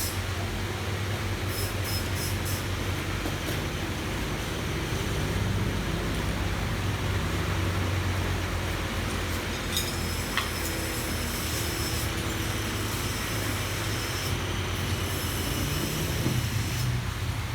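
Motorbike engine running steadily: an even low hum with hiss and light rattling above it.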